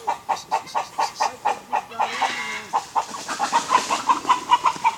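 A chicken clucking in a rapid run of short, evenly spaced clucks, about four to five a second, growing louder near the end.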